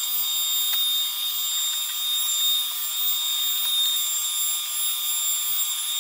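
Router on a Onefinity Woodworker CNC running steadily with a V-bit, engraving grid lines into the wasteboard, with dust extraction drawing through the hose on the dust boot. A steady high-pitched whine.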